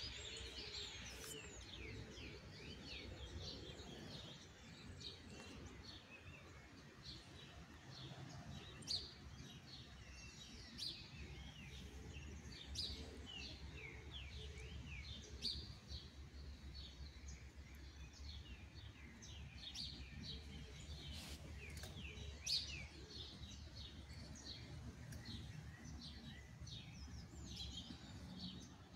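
Small birds chirping and calling, many short quick chirps throughout with a few louder ones, over a faint low steady rumble.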